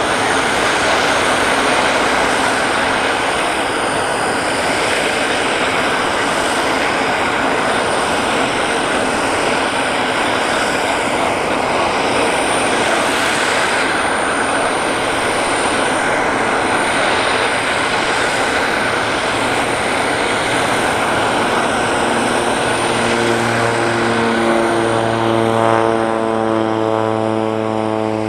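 Aircraft turbine noise: a steady loud rush with a thin high whine. Near the end a deeper pitched drone sets in and climbs slightly.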